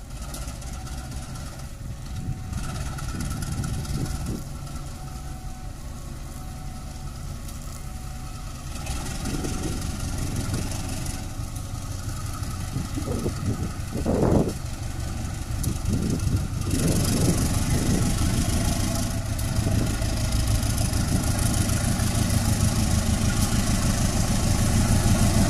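Diesel locomotive engine running as a train approaches, growing steadily louder, with one brief louder noise about halfway through.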